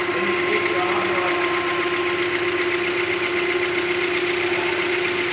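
Hyundai Creta's 1.6 Gamma petrol engine idling steadily with a fast, light tec-tec ticking from the top of the engine. The ticking is typical of this engine when cold in the morning and is taken as normal, not a fault.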